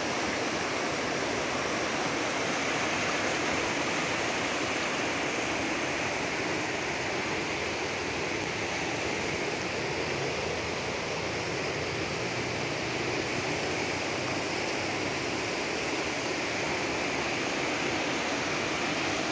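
Fast-flowing river rushing over rocky rapids: a steady, unbroken noise of water.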